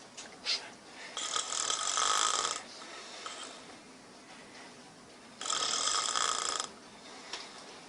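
A sleeping person snoring loudly: two long snores, each over a second, about four seconds apart.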